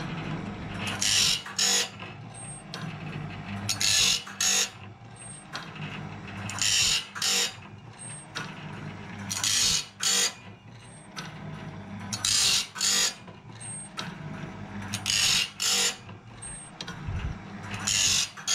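Electric band-saw blade sharpener grinding a sawmill blade tooth by tooth. The motor hums steadily while the grinding wheel bites into each tooth with a harsh, hissing grind in two quick scrapes, seven times at about one every three seconds, with a short faint high ping between strokes as the blade is indexed on. The blade is being reground from the 7/34 to the 10/30 tooth profile, so a lot of steel comes off with each stroke.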